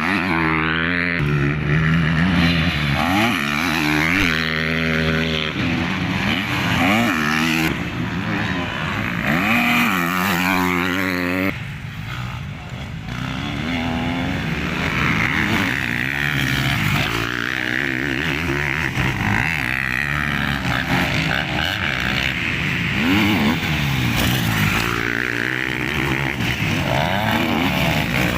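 Motocross motorcycle engines running on a dirt track, revving up and falling back again and again as the bikes accelerate and shift, with overlapping engine notes. The sound changes abruptly about eleven seconds in.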